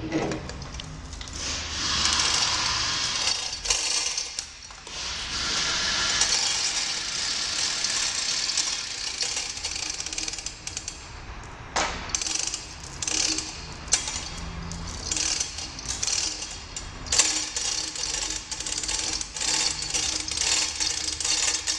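Steel hand chain of a manual chain hoist rattling and clinking as it is pulled hand over hand, lifting the rocker shaft assembly off a Volvo D13 cylinder head. Long stretches of continuous rattle give way after about half the time to shorter, separate pulls with sharper clinks.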